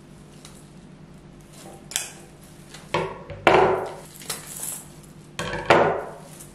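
Dishes and cooking utensils clattering and clinking as they are handled, in several short knocks that ring briefly; the loudest come about three and a half seconds in and near the end.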